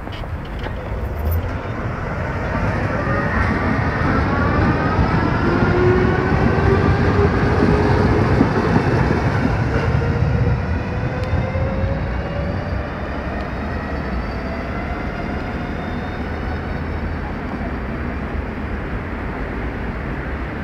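Ganz UV tram passing close by on its rails, its traction motors and gears whining in several tones that rise in pitch as it picks up speed, over the low rumble of the wheels. It is loudest about halfway through, then fades to a steadier rumble as it moves off.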